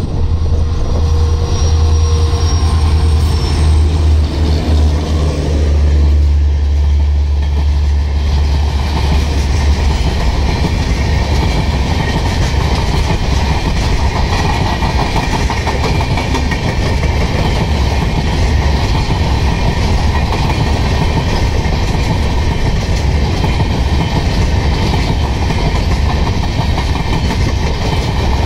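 Diesel locomotive passing close by with a deep engine rumble for the first several seconds. Then a long rake of LHB passenger coaches rolls past at speed, a steady rushing rail noise with a continuous clickety-clack of wheels over the rail joints.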